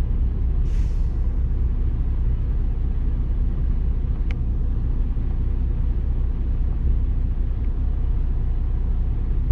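Semi-truck's diesel engine running with a steady low rumble, and a single short click about four seconds in.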